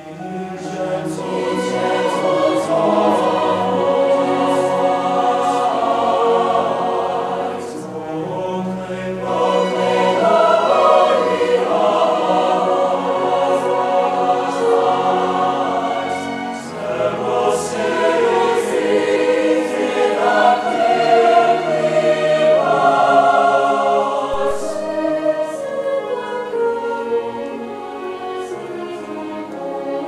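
A mixed choir singing with a string orchestra, violins, cellos and double bass, accompanying. The music swells in at the start and eases briefly about eight seconds in.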